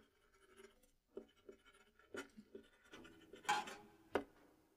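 Faint rustling and small taps of printed paper sheets being handled, with a louder scrape about three and a half seconds in and a sharp tap just after four seconds.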